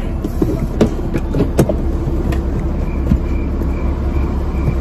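Car interior noise: the steady low rumble of a car on the move, with a few knocks and, from about three seconds in, a faint beep repeating about twice a second.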